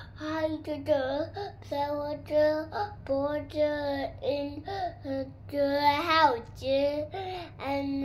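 A young child singing in short phrases, holding several notes at a steady pitch between pitch glides.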